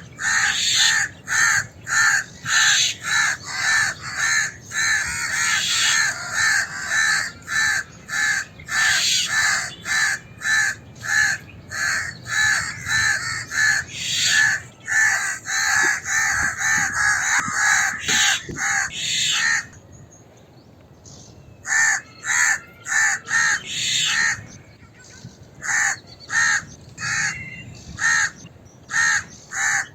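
House crows cawing in alarm: a rapid, overlapping run of short harsh caws, about two a second, with a two-second break about two-thirds of the way through before the cawing resumes.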